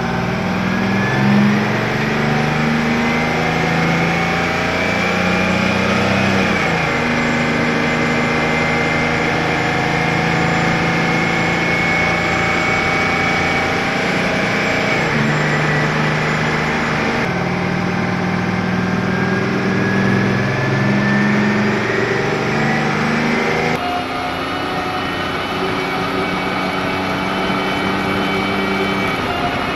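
GMC Brigadier truck's engine pulling under load, heard from inside the cab. The pitch climbs steadily and then drops at each gear change, about three times.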